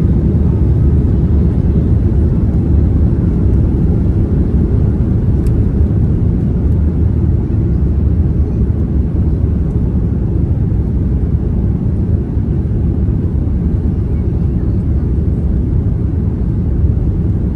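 Steady low rumble of a jet airliner's engines and airframe heard from inside the cabin as the plane taxis on the ground.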